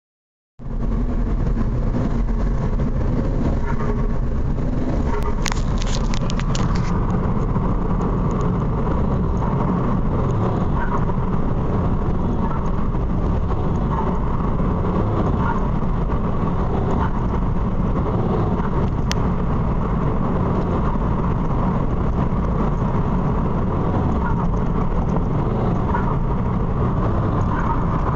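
Peugeot 207 HDi 90 turbodiesel heard from inside the car while driving, being floored to about 2000 rpm and let off again, with the turbo wastegate chattering and fluttering on each lift-off over steady engine, road and wind noise. A short run of sharp clicks comes about five to seven seconds in.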